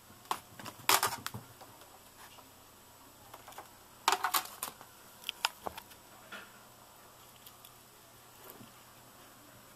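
Scattered sharp clicks and knocks in a small room: a cluster about a second in, another about four seconds in, and a few single ticks after that, over a quiet steady background.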